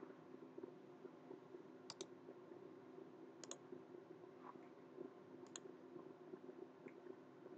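Computer mouse button clicks: three sharp clicks about two, three and a half, and five and a half seconds in, each a quick double snap of press and release, and a fainter one near the end, over a faint steady hum.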